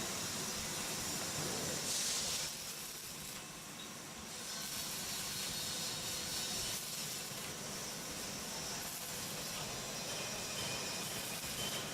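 Electric arc welding: the arc hisses steadily while the electrode burns, with a brief louder, sharper patch about two seconds in.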